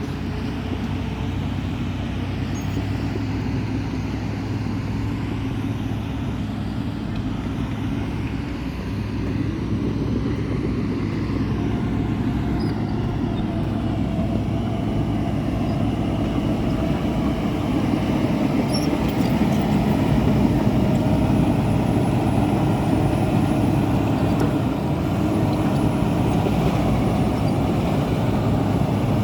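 A motor vehicle running steadily with rumbling noise, growing a little louder about a third of the way in and again past halfway.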